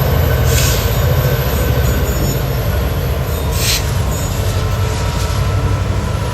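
EMD GP60 diesel locomotive's two-stroke V16 engine working hard under throttle with a loud, low rumble as it pulls a train away from a stop. Two short hisses break through, about half a second and three and a half seconds in.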